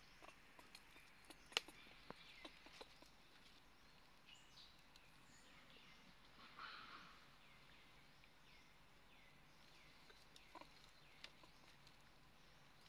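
Near-silent forest ambience with scattered faint clicks and rustles, the sharpest click about one and a half seconds in, and faint high chirps repeating through the second half.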